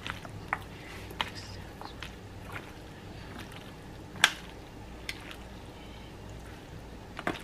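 A plastic spoon stirring cooked elbow macaroni and butter in a disposable aluminium foil pan: soft squishing with scattered light clicks and taps against the foil, one sharper tap about four seconds in and two quick ones near the end, over a faint low hum.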